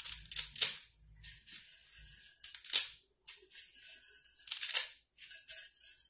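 Dry spaghetti being snapped in half by hand: a string of sharp crackling snaps in several bursts, with the broken pieces rattling down into a stoneware pot.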